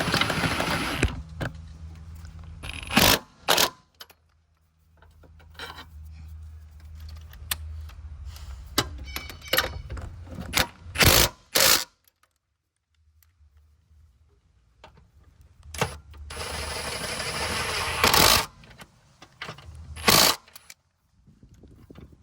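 Intermittent metallic clanks and sharp knocks from tools and a new engine mount with its bolts being worked into place, with a low hum in stretches between.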